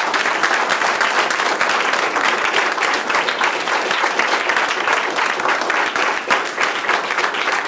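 Audience applauding, many hands clapping densely and steadily.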